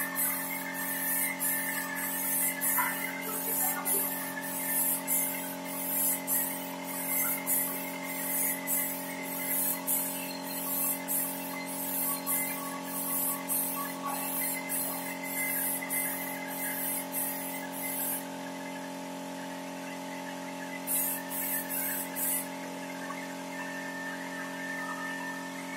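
Wood polish spray machine running: a steady motor hum of several even tones, with rapid regular hisses of air from the spray gun, about two a second. The hissing stops about three-quarters of the way through, then returns briefly a few seconds later while the hum carries on.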